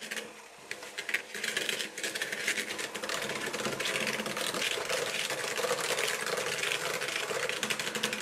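KitchenAid electric hand mixer running, its wire beaters creaming butter and sugar in a plastic bowl, with rapid clicking over a steady motor sound. It starts right at the beginning and settles to an even level after about a second.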